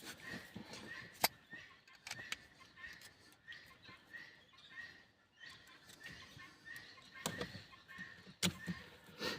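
Sharp clicks and knocks of a screwdriver and plastic parts as the screws of a steering-column turn-signal switch are refitted, the loudest about a second in and two more near the end. A faint short high chirp repeats about three times a second underneath.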